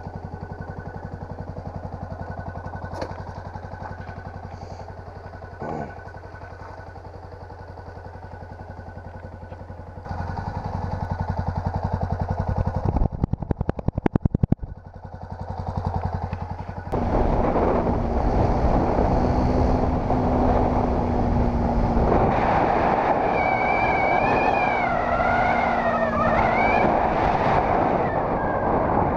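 Yamaha WR-X supermoto's single-cylinder four-stroke engine idling steadily with its low exhaust beat, a run of quick throttle blips about halfway through, then the bike pulling away and running along a gravel road, louder, with wind and road noise over it.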